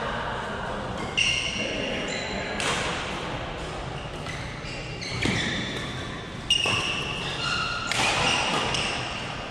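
Badminton rally: about five sharp racket hits on the shuttlecock, a second or so apart, with players' shoes squeaking on the court between them.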